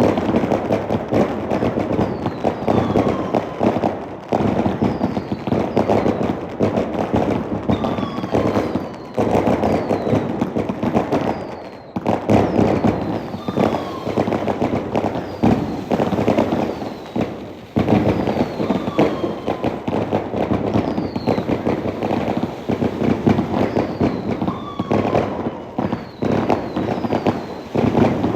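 A barrage of fireworks and firecrackers, with dense crackling and bangs throughout. Short falling whistles come every second or two.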